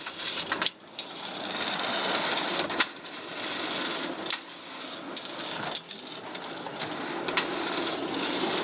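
A small train of wheeled carts rattling and clattering steadily as it rolls along, with scattered clicks and knocks.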